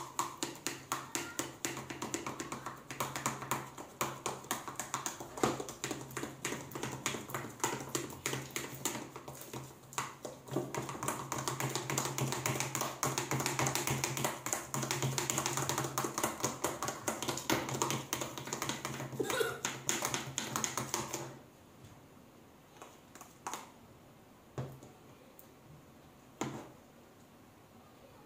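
Fast, continuous clicking and tapping of slime being mixed in a bowl, over a steady low hum. Both stop suddenly about 21 seconds in, leaving a few separate taps.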